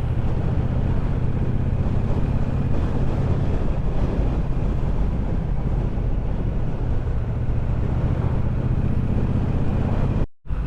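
Triumph Bobber's 1200 cc parallel-twin engine running steadily while riding, with wind rushing over the microphone. The sound cuts out for a moment near the end.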